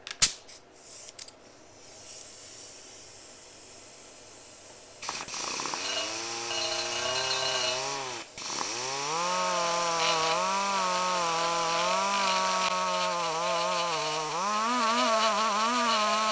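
A sharp knock and a few clicks, then from about five seconds in a pneumatic die grinder with a burr whines as it cuts into the Honda CBX's aluminium cylinder head. Its pitch wavers and dips as the burr is loaded, with a deep dip near the middle, while it dresses damaged spots near the valve spring buckets.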